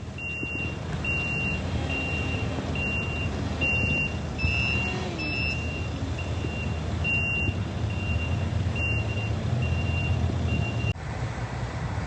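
Digger's motion alarm beeping, a steady high tone repeating about once every 0.8 s over the low rumble of its diesel engine. The beeping and engine sound stop suddenly near the end.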